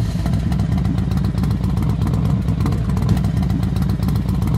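Motorcycle engine running loud and steady.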